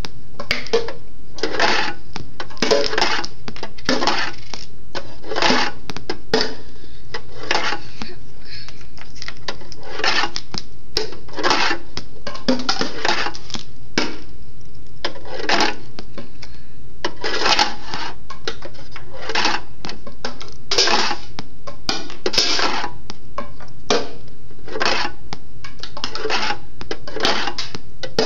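Steel skateboard bearings dropped one after another, clinking and clattering as they bounce off a chair and land in cardboard tubes and a can: a steady run of sharp metallic clicks, one or two a second, some ringing briefly.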